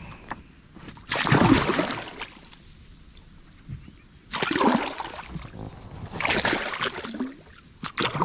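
Hooked giant snakehead thrashing at the water's surface beside the boat: three splashes, each about a second long.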